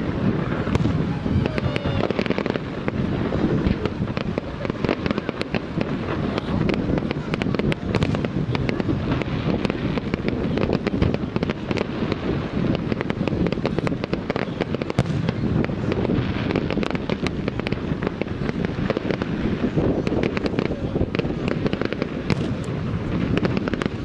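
Aerial fireworks display: a dense, unbroken barrage of shell bursts and crackling, with no pause.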